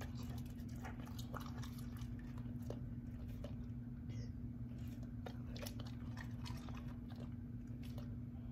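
Golden retriever chewing a piece of cooked chicken breast: irregular wet mouth clicks and smacks, coming in two spells, over a steady low hum.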